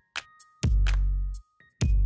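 Electronic background music with a steady beat: deep, long bass-drum hits alternating with sharp percussion clicks and short synth notes.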